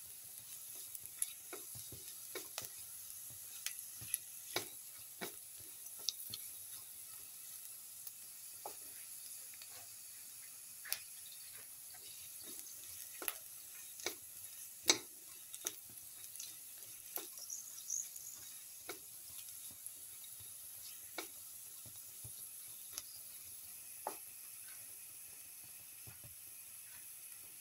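Sliced shallots and garlic sizzling softly in oil in a pan, with a steady high hiss. A plastic spatula stirs them, scraping and clicking against the pan now and then at irregular moments.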